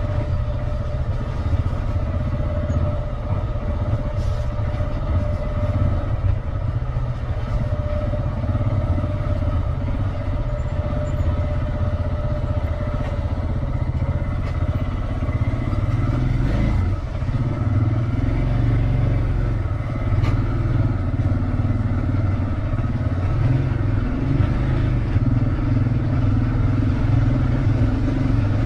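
Motorcycle engine running steadily under way, with no clear revving or stops.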